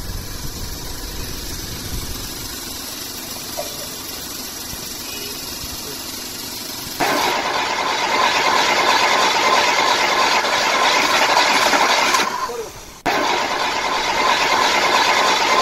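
Hard plastic toy truck wheels rolling over rough concrete: a steady gritty rolling noise that starts suddenly about seven seconds in, dies away briefly a little after twelve seconds and starts again.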